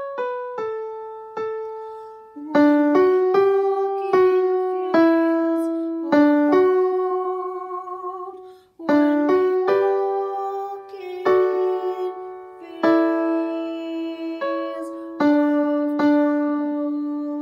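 Piano-sound playback of the alto part of a choral arrangement, struck notes and chords moving at a slow, even pace. It breaks off for a moment about halfway through, then settles into a long held low note near the end.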